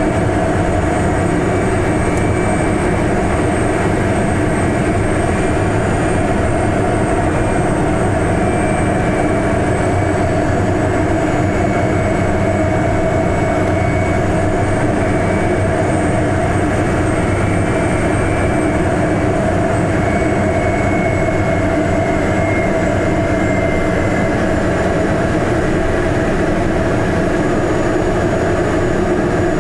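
Single-engine propeller airplane's engine and propeller droning steadily, heard inside the cockpit on the approach to landing, with a faint high whine that wavers slightly in pitch.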